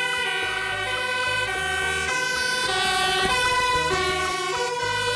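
Fire engine sirens sounding as the trucks pull out on an emergency run. The tone steps back and forth between pitches every second or so, with more than one siren overlapping.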